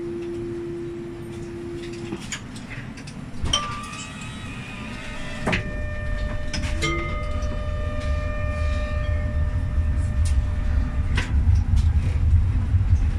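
A GEC-Alsthom TFS tram at a stop: a steady beep for about two seconds, then clicks and several chiming tones that ring on and fade. From about halfway, a low rumble grows as the tram pulls away.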